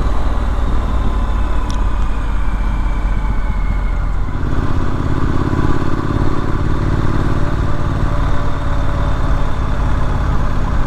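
Triumph Street Scrambler's 900 cc parallel-twin engine running on the move, with wind rush on the microphone. About four seconds in the rush eases and the engine settles into a steady, even note.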